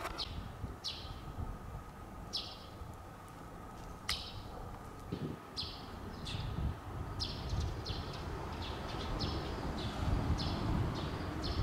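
A small bird chirping repeatedly: a long series of short, high, falling chirps, coming faster in the second half.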